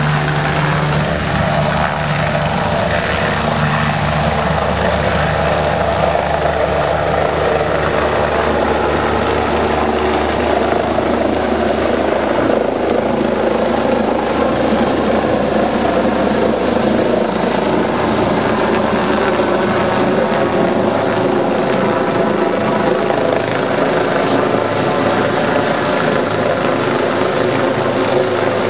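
Eurocopter EC145 twin-turbine helicopter taking off and climbing away: its rotor and turbines run steadily, a low hum in the first few seconds giving way to an even rushing noise.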